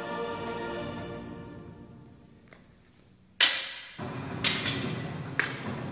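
Instrumental music fading out, then wooden staffs clacking together in sparring: a loud sharp strike about halfway through, followed by two more roughly a second apart, each with a short ringing decay.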